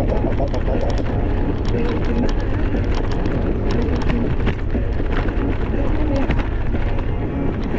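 Steady wind rumble buffeting the microphone on a moving bicycle, with scattered short clicks and rattles.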